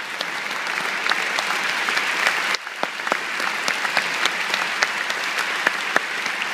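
Concert hall audience applauding: a dense, steady patter of many hands clapping, briefly dipping about two and a half seconds in.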